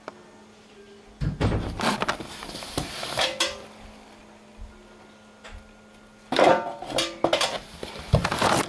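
Knocks, rubs and clatter of a handheld video camera being handled with its microphone covered, in two bouts: one about a second in and one from about six seconds in.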